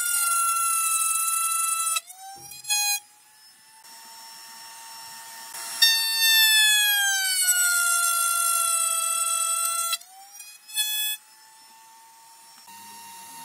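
Table saw cutting slots in a board held upright in a sliding jig: two passes, each with a loud blade whine whose pitch sags as the blade bites the wood. Between passes the blade spins on more quietly, with a short louder blip as the jig is pulled back.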